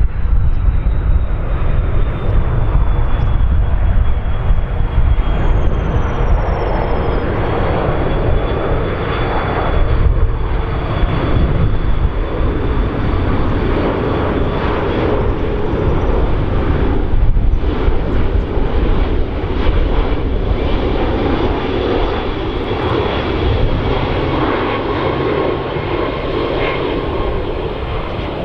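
Airbus A330-300 twin-jet on final approach with gear down, its two General Electric CF6 turbofans producing a steady loud engine rumble with a high whine that slowly drops in pitch as it passes.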